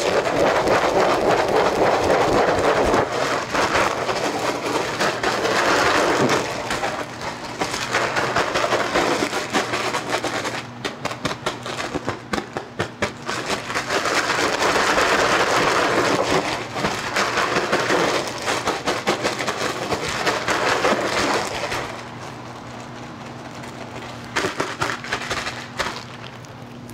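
Sterile grain rattling and shifting inside a spawn bag as the bag is shaken and mixed by hand to break the agar wedges into fragments and spread the mycelium through the grain. The shaking comes in uneven surges and mostly stops near the end, leaving a low steady hum.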